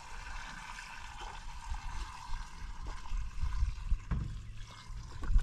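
Water trickling steadily, with irregular low rumbles and a knock about four seconds in.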